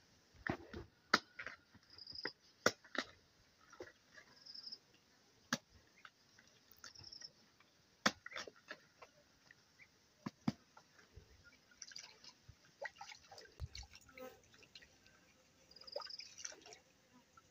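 A knife cutting through cabbage held in the hand, a scattering of sharp, crisp cuts and snaps of the leaves at irregular intervals. Now and then a short, high chirp sounds behind it.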